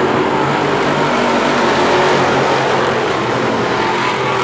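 A pack of dirt-track modified race cars running at speed around the oval. Their engines make a loud, steady, overlapping drone.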